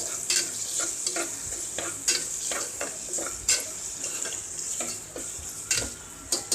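Onions, green chillies and ginger-garlic paste sizzling in hot oil in a pressure cooker while being stirred, the stirring scraping and knocking against the pot in irregular strokes about twice a second.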